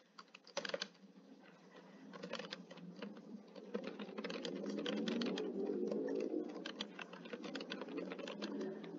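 Typing on a computer keyboard: rapid, irregular key clicks, with a low murmur underneath from about two seconds in.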